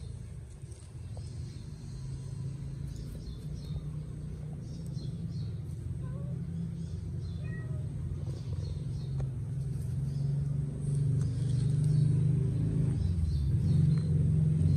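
A motor vehicle's engine running with a low, steady rumble that grows louder toward the end.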